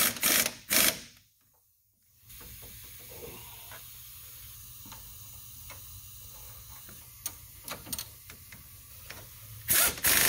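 Earthquake impact wrench hammering in short bursts, running in the lower strut bolts of a new coilover, then a long burst near the end. Between them come scattered light metallic clicks and clinks.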